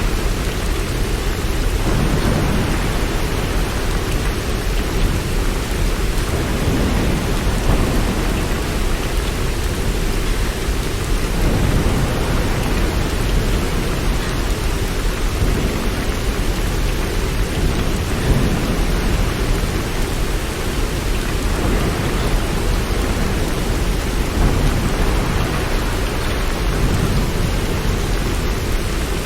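Steady rain with a continuous low rumble underneath, like distant thunder, with no breaks or single strikes.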